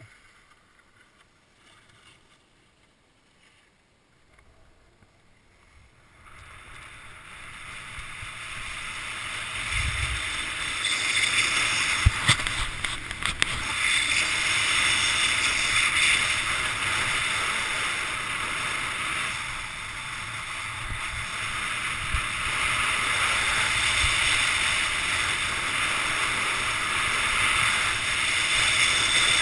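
Skis running over packed snow with wind rushing past a helmet-mounted action camera: a steady rushing hiss and rumble that builds from about six seconds in and stays loud once the skier is at speed, with a few sharp knocks about halfway through.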